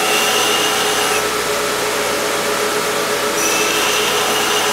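Belt grinder running an old 80-grit ceramic belt, grinding the edge of a hardened steel tool. Under a steady motor hum, a higher-pitched grinding whine comes in twice, each time for a second or so.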